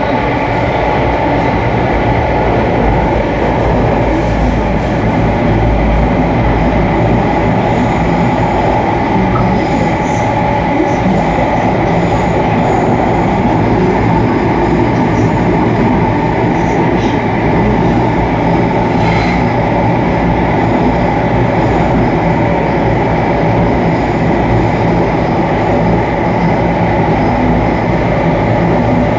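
Very loud, steady air-conditioning noise inside a moving metro train carriage, mixed with the train's running rumble.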